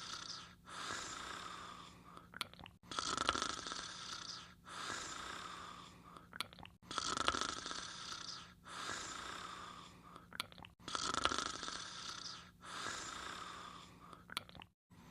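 Snoring in an even rhythm: a louder, noisy breath of about two seconds followed by a softer one, the cycle repeating about every four seconds, with a short click before each louder breath.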